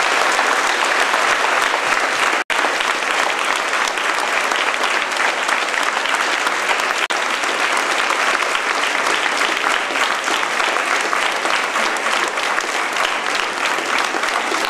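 A large audience applauding steadily and without a pause, the dense clapping of a packed hall. The sound cuts out for a split second about two and a half seconds in.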